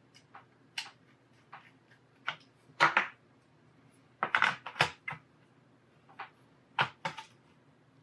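Scattered clicks and knocks of a laptop hard drive in its metal bracket being handled and pressed into the plastic laptop chassis, with the loudest knocks about three seconds in and again around four to five seconds.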